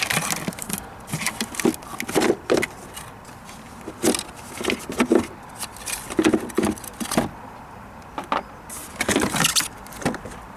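Hard plastic knocking, clicking and scraping as the upper half of a car's plastic air filter box is worked free and lifted out, in irregular clusters of sharp knocks.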